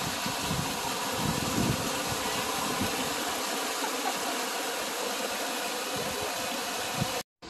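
Creek water rushing down a narrow rock chute and splashing over a person sitting in the cascade: a steady rush with a few low bumps. It cuts off suddenly near the end.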